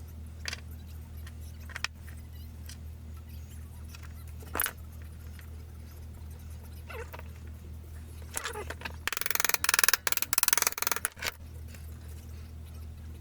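Small objects handled on a workbench during a knife-handle glue-up: a few single clicks, then a rapid clattering rattle lasting about two seconds, over a steady low hum.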